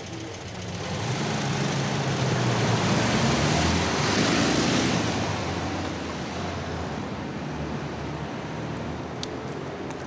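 A car driving past, its engine and tyre noise swelling to a peak about four seconds in and then fading.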